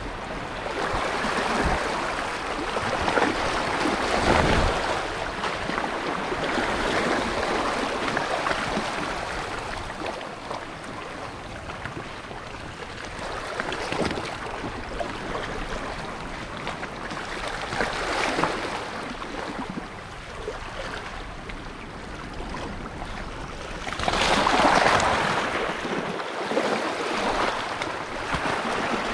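Small waves washing and lapping, swelling now and then, loudest near the end, with wind on the microphone.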